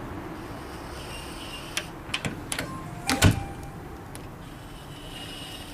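Yale Easy Living electronic deadbolt being operated: a few sharp clicks, then one loud clunk about three seconds in, with short high electronic beeps from the lock before and after.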